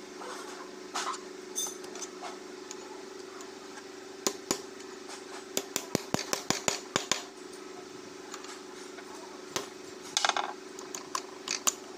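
Screwdriver prying a worn oil seal out of a steel housing held in a vise: sharp metal clicks and scrapes, a few scattered at first, then a quick run of them in the middle and more near the end. A steady low hum lies underneath.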